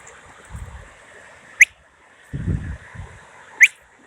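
Two short, sharp rising whistles about two seconds apart, given to a working dog. Low rumbling noise comes between them.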